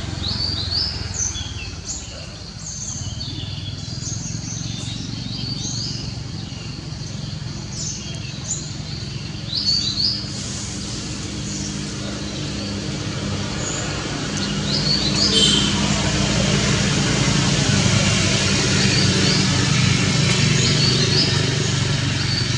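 Small birds chirping in many short, high notes over the steady hum of a motor vehicle's engine. About fourteen seconds in, the vehicle noise grows louder and stays up, and the chirping thins out.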